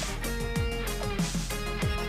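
Background music with a steady beat: sustained tones over a regular drum pattern.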